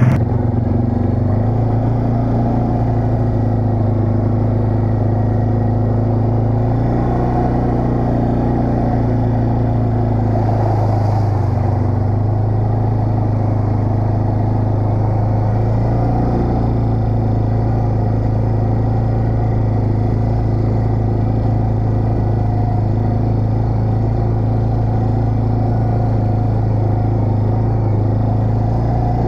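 ATV engine running steadily while riding, its note dipping and rising slightly a few times.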